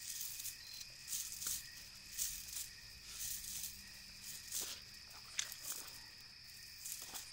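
A nylon cast net being handled, giving short irregular hissing rustles every half second to a second, over a steady high trilling of night insects.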